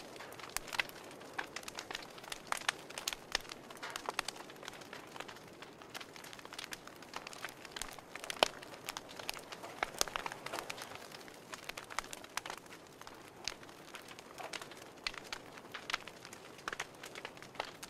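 Wood fire crackling in a wood stove: irregular sharp pops and snaps over a soft steady hiss, with one louder snap about halfway through.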